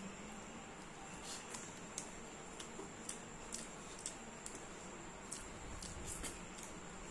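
Eating by hand: soft, irregular wet clicks and squishes as fingers mix rice on a banana leaf and the food is chewed. A faint steady high whine runs underneath.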